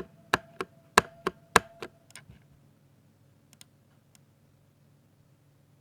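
Typing on a 60% mechanical keyboard with Ducky Silver linear switches: about eight sharp keystrokes in the first two seconds, then a few faint taps and a pause.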